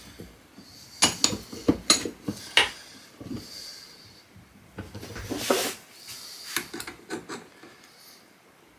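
Steel hand tools clinking and scraping against a steel Carcano rifle bolt held in a bench vise, as a stuck extractor is worked at. A run of sharp metal clinks in the first three seconds, a short scrape around five seconds in, then a few lighter clicks.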